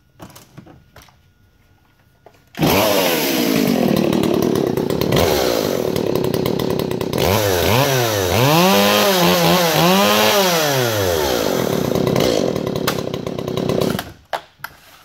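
Stihl MS 180 two-stroke chainsaw with a custom test exhaust and advanced timing, starting about two and a half seconds in and running loud. It is revved up and down a few times, then cuts off near the end.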